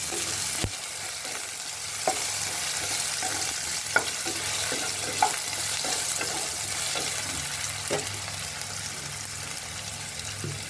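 Potato pieces frying in hot oil in a pan, a steady sizzle, with a few sharp scrapes and taps of a utensil stirring them against the pan.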